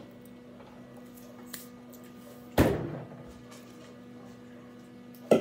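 Two sharp knocks about three seconds apart, tableware being set down on a countertop, over a steady low hum.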